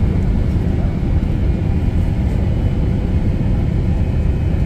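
Jet airliner cabin noise: a loud, steady rumble of engines and rushing air heard from inside the passenger cabin.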